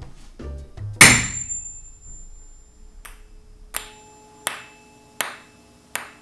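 Tuning fork struck sharply about a second in, ringing with a thin high overtone that fades. Then a ping-pong ball on a string knocks repeatedly against the vibrating prongs, giving sharp clicks about every three-quarters of a second over the fork's steady hum.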